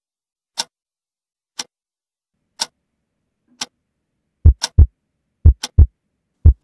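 Clock ticking sharply once a second; about four and a half seconds in, a loud heartbeat joins it, a low double thump once a second with the ticks falling between the beats.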